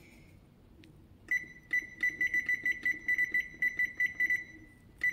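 Electric range's touch control panel beeping: a rapid run of short high beeps as the timer's arrow button steps the oven timer up toward 90 minutes. It ends in one longer fading beep, then two more quick beeps near the end.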